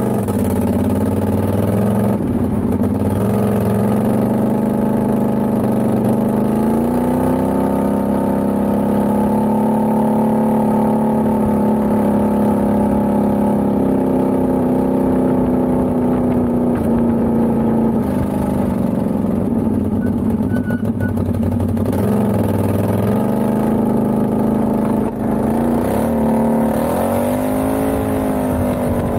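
Can-Am Outlander XMR ATV's V-twin engine running under way, its pitch rising and falling as the quad speeds up and eases off, with a quick dip and climb near the end.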